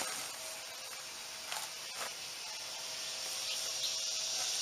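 Insects droning in a high, steady hiss that grows louder, with a few short knocks and scrapes as the old equipment pad is lifted and tipped up out of the dirt.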